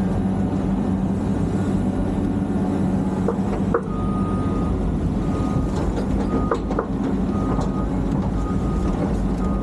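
A machine's engine running steadily, with a reversing alarm beeping about once a second from about four seconds in, and a few sharp knocks.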